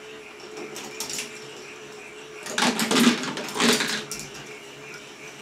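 K'NEX ball machine running: plastic balls clicking and clattering along the plastic tracks over a steady motor hum. About halfway through comes a louder stretch of rattling that lasts about a second and a half.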